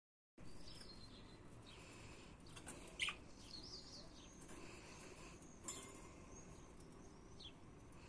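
Pet budgerigars giving faint, short chirps and warbles, with a sharp click about three seconds in and another just before six seconds.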